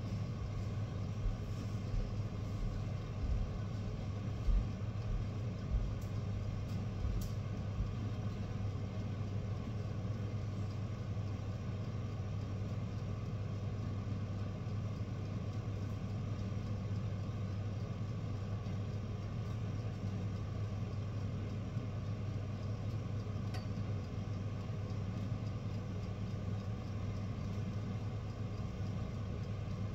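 A steady low mechanical hum, with a few soft low thumps in the first several seconds and a faint click now and then.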